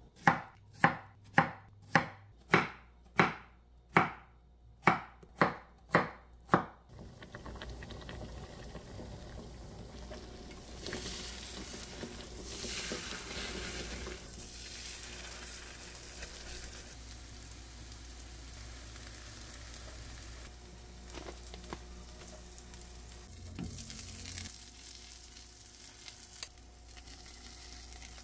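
About a dozen knife chops on a wooden cutting board, roughly two a second. From about seven seconds in, they give way to shredded-cabbage cheese pancakes sizzling steadily in a frying pan.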